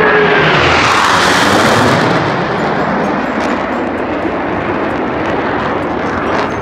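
Blue Angels F/A-18 jet making a low pass at high power: loud jet noise that peaks within the first two seconds with a falling whine as it goes by, then a ragged, crackling rumble as it moves away.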